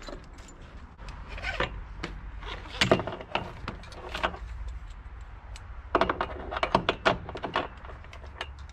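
Metal ratchet buckle of a wheel tie-down strap being worked by hand: scattered bursts of clicks and rattles, then a quick run of clicks about six seconds in as the ratchet is cranked to tighten the strap.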